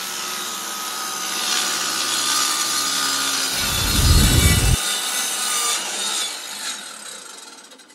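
Circular-saw sound effect of a blade cutting through wood. It builds up to a peak and then fades away near the end, with a deep boom about three and a half seconds in that lasts about a second.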